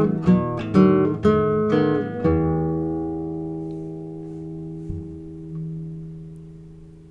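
Acoustic guitar strummed in a quick rhythm, then a final chord struck about two seconds in and left to ring out, fading slowly, with a faint knock as it dies away.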